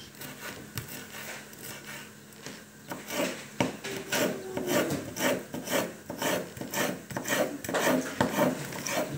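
Chef's knife slicing a red kapia pepper into strips on a wooden cutting board: a regular series of short cuts, the blade knocking on the board about two or three times a second, starting about three seconds in.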